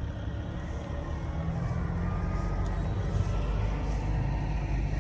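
The 1989 Chevrolet Caprice police car's 350 V8 idling steadily with a low, even running sound.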